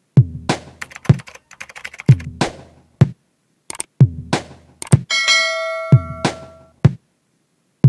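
Electronic intro music: a drum-machine beat with a kick about once a second and snappy hits in between. About five seconds in, a bell-like chord rings for about a second.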